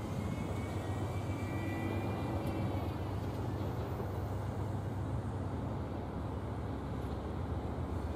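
Steady low rumble of distant trains, with a faint high-pitched squeal during the first few seconds.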